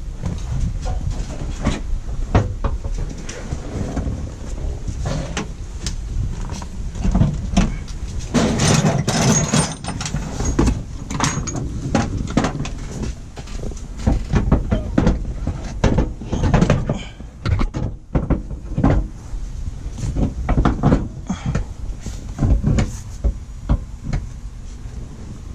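Irregular knocks, clunks and rattles of hand work on a car seat installation, with a low rumble underneath; busiest about a third of the way in and again through the second half.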